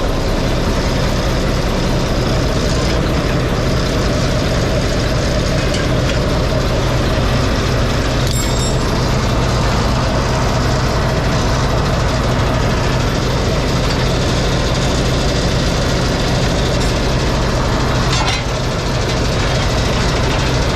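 Heavy diesel truck engine idling steadily, with a couple of brief metallic clicks about 8 and 18 seconds in.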